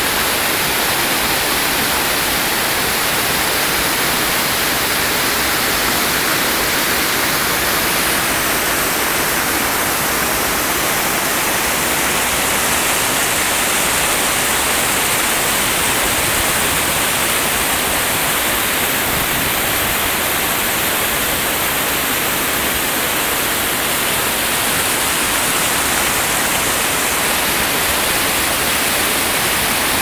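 Mountain stream rushing over boulders in small cascades of white water: a loud, steady rush with no breaks.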